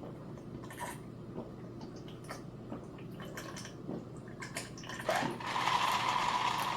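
A few small clicks and taps, then a long slurping sip of sweet tea with lemon, starting with a rising pitch, that lasts about a second and a half.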